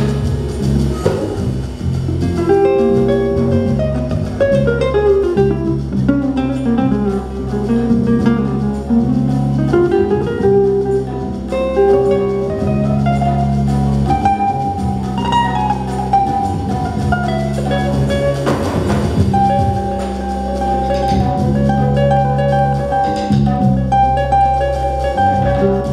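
Live small-band music in a jazz-inflected Colombian style: an acoustic guitar plays a melodic instrumental passage over held electric bass notes and light percussion.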